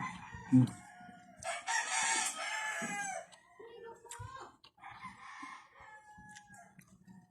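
A rooster crowing: one loud crow about a second and a half in that drops in pitch at its end, then a fainter crow around five seconds in. A short low thump comes just before the first crow.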